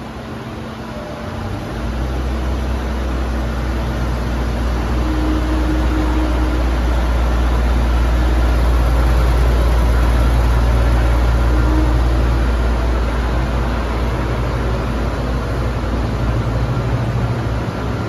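Diesel commuter train rolling slowly past along a station platform, its engine giving a deep, steady rumble that comes in about a second and a half in, swells to its loudest around the middle, then eases a little.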